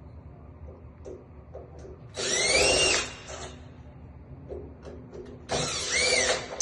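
Cordless drill/driver run in two short bursts, each winding up and back down in pitch, backing out the screws of a door lock so it can be taken off for rekeying.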